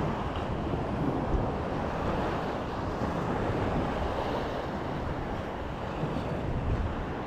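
Steady wind buffeting the microphone over gently lapping shallow water.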